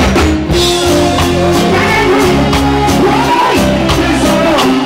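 Loud live reggae band music, with a steady bass line, regular drum beats and a voice singing over it.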